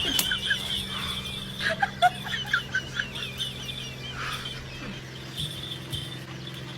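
Chickens clucking and birds chirping, with a quick run of short calls between about one and a half and three seconds in, over a steady high-pitched tone.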